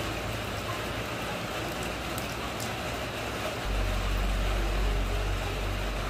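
Steady rain falling on wet ground and into a puddle, an even hiss of drops. About two-thirds of the way through, a deep low rumble sets in under the rain and holds.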